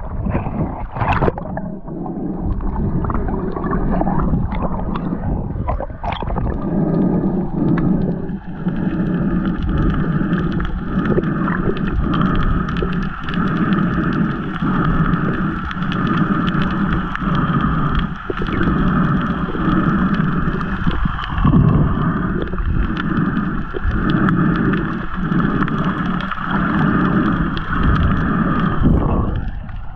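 Muffled underwater-sounding water noise with a steady mechanical hum, the low rumble swelling and dipping about once a second; the hum drops out just before the end.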